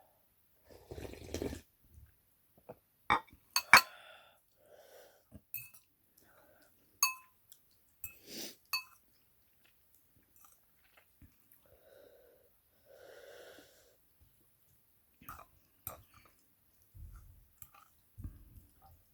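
Someone eating noodle soup: utensils clink sharply against a bowl, the loudest clinks a few seconds in, amid slurps, chewing and wheezy, congested breathing from a head cold.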